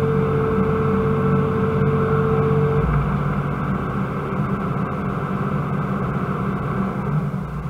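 Hydraulic excavator's diesel engine running steadily under working load, heard from inside the operator's cab, with a steady high whine that stops about three seconds in.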